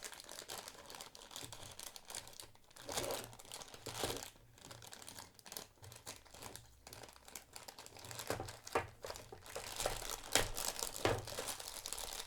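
Plastic packaging being unwrapped from a plastic model kit's main body: irregular crinkling and tearing, with sharp crackles.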